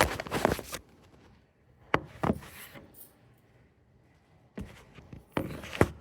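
A few sharp knocks and clicks with bursts of rustling between quiet gaps, the loudest click just before the end.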